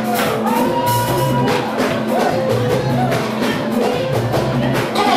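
Live praise music with keyboard, bass and drums, voices singing along.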